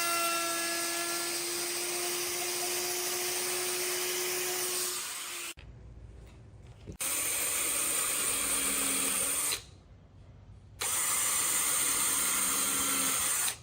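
Electric power tool running at high speed with a steady high-pitched whine. It cuts off abruptly twice for a second or so and then starts again.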